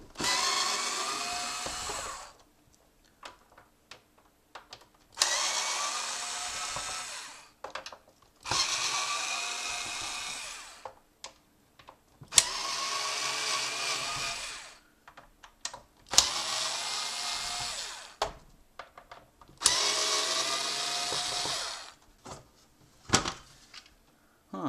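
Power drill-driver running in six short spurts of about two seconds each, backing out the screws that hold a PlayStation 1 console's case together. Small clicks and taps come between the spurts.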